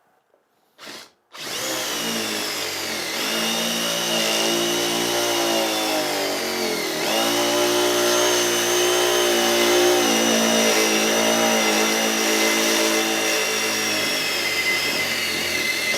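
Parkside Performance PDSSAP 20-Li B2 brushless cordless impact driver running and hammering without a break for about fourteen seconds, its pitch dipping briefly twice. It is trying to drive a size-6 self-drilling screw into metal that will not bite, which is typical of a bad batch of screws. The sound starts about a second and a half in.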